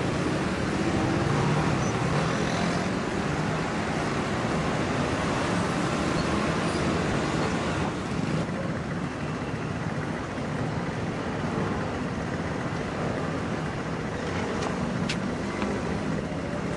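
Steady city street traffic noise: motor scooters and cars running through an intersection.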